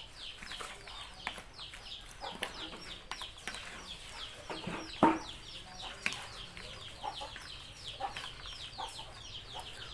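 A pomelo and shrimp salad with leaves being tossed by hand and spoon in a plastic bowl: soft wet rustling and small clicks, with one sharp knock about halfway through. Chickens cheep throughout in short, high, falling chirps, several a second.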